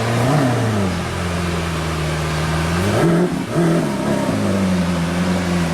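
Car engine revving: its pitch rises and falls just after the start and again about three seconds in, holding steady in between, over a steady hiss.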